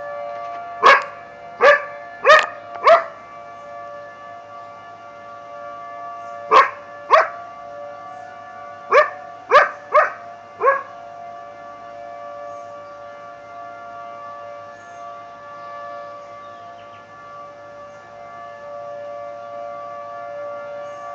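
Tornado siren sounding a steady chord, with a dog barking sharply over it: four barks about a second in, two more around seven seconds, four more between about nine and eleven seconds, then only the siren.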